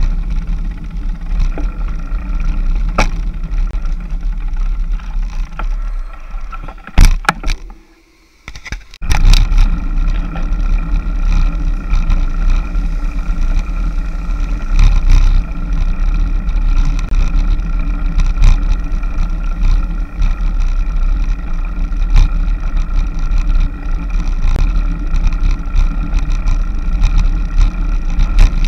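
Wind rumble and road noise picked up by a bike-mounted action camera while a road bicycle rides along. The sound drops out briefly about eight seconds in, between two clicks, then the steady rumble resumes.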